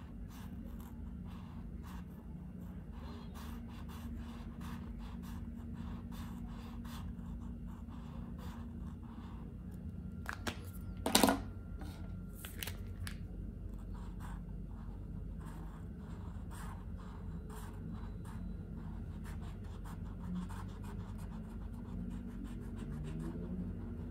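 Posca paint marker nib scratching across paper in many short, quick colouring strokes. About eleven seconds in, the marker's plastic cap is handled with a sharp, loud click.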